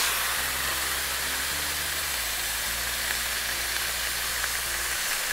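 Smashburger patties of ground beef sizzling steadily on a hot flat-top griddle, one being held flat under a burger press.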